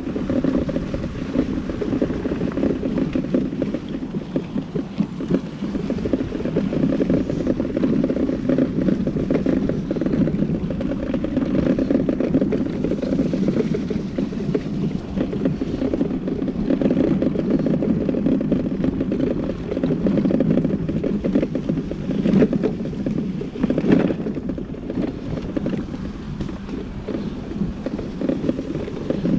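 Mini Crosser electric mobility scooter on the move: a steady rumble from its motor and tyres rolling along a path. Two short knocks come about two-thirds of the way through.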